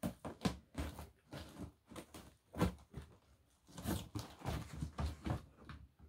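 Scissors cutting through packing tape on a cardboard box, with an irregular run of short scrapes and crackles as the tape and cardboard are worked.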